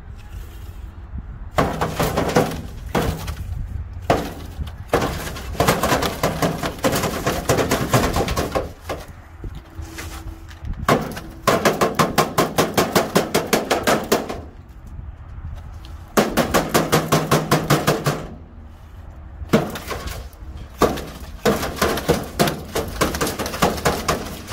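A long pole rattling and banging inside a roof rain gutter, in bursts of rapid knocks about seven a second with short pauses between. The gutter is being rattled to drive out iguanas hiding in it.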